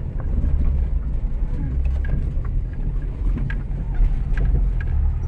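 Car driving on a dirt road, heard inside the cabin: a steady low rumble of engine and tyres, with scattered light knocks and rattles.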